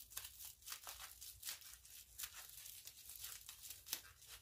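Faint crinkling and tearing of wrapping as a small package is worked open by hand, in short irregular bursts.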